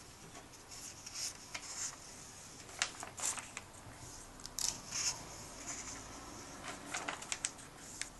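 Comic-book pages being turned and smoothed flat by hand: a run of crisp paper rustles and swishes with a few small sharp clicks.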